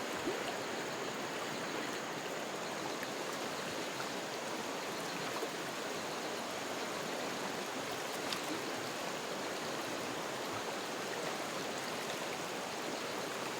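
River water running steadily, an even rush of flowing water with no breaks.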